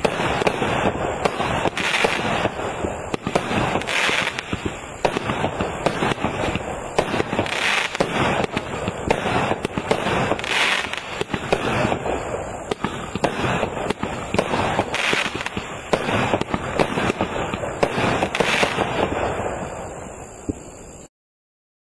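A 19-shot firework cake firing shot after shot: a continuous dense popping and crackling of launches and bursts, with a louder hissing shot every couple of seconds. It cuts off suddenly near the end.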